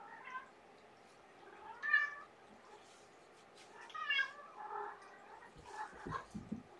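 A cat meowing three times: once at the start, once about two seconds in (the loudest), and again about four seconds in. Soft thumps and rustling follow near the end.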